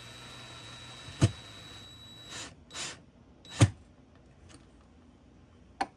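Electric drill running with a faint steady whine for about two seconds while driving screws into a small cabinet latch, with two sharp clicks and a few short scrapes of the tool and hardware.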